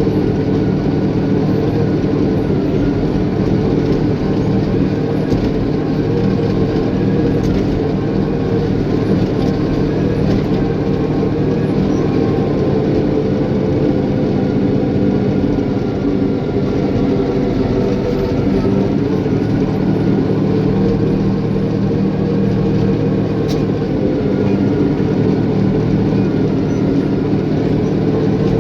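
Caterpillar bulldozer's diesel engine running steadily, its pitch wavering slightly now and then.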